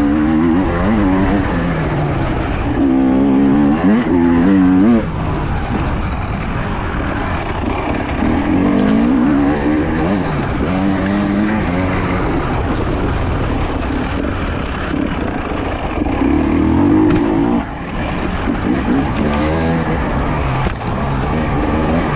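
Two-stroke enduro motorcycle engine revving hard and repeatedly rising and falling in pitch as the rider opens and closes the throttle and shifts through the gears. The engine briefly drops off about three quarters of the way through before picking up again.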